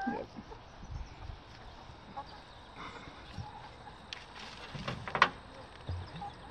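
Laying hens clucking softly now and then, with faint rustling and a few sharp clicks about four to five seconds in.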